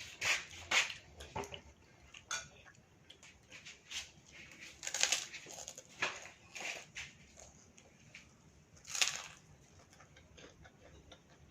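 Eating sounds at a meal: a spoon clinking and scraping on a plate, with bites of crunchy fried food, in about ten short scattered bursts, the loudest about five seconds in and near nine seconds.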